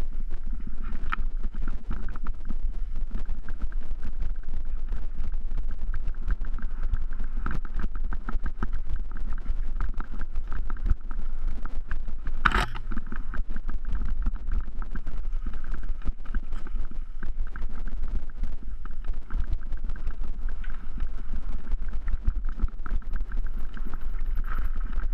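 Mountain bike rattling and clattering over a rough, stony dirt trail, heard from a camera mounted on the bike, with wind rumble on the microphone. One sharp, loud knock about twelve seconds in, as from a hard bump.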